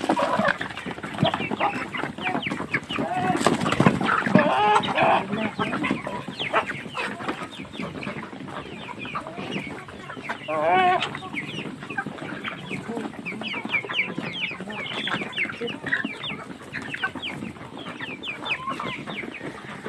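A flock of chickens clucking and calling, many short sharp calls overlapping all the way through, with one longer wavering call about halfway. The hungry flock is waiting to be fed.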